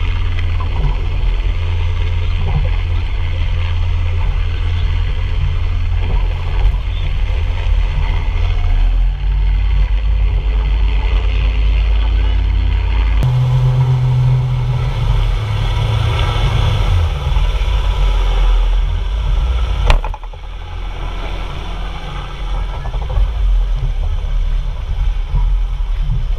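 Outboard engine of a rigid inflatable rescue boat running under way, with heavy wind rumble on the camera microphone. A sharp knock comes about twenty seconds in, after which the sound drops lower as the boat slows to a near stop.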